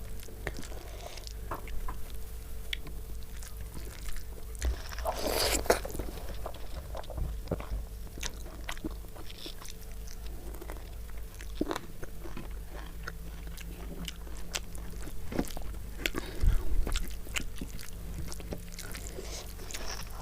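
A person chewing and biting food close to the microphone, with many small crunches and mouth clicks and a louder burst of crunching about five seconds in.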